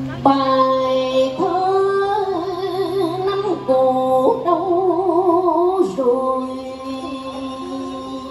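A woman singing cải lương through a microphone and loudspeakers: long held notes with a wide vibrato, over a steady low accompanying tone that drops out a little past halfway.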